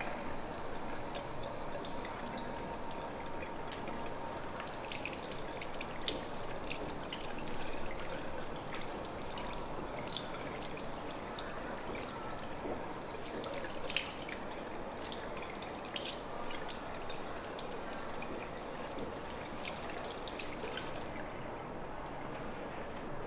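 Water running from a handheld shower sprayer over bare feet and splashing into a ceramic basin, a steady rushing hiss, with a few light clicks now and then.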